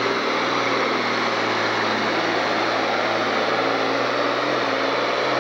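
Diesel engine of an International Harvester farm stock pulling tractor running flat out under heavy load as it drags a weight-transfer sled. It is a loud, steady drone that holds one pitch.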